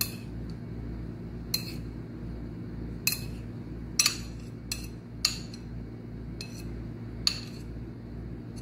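Metal spoon clinking against a plate as diced mango is scraped off and dropped onto ice cream mixture: about eight light, sharp clinks at irregular intervals, over a steady low hum.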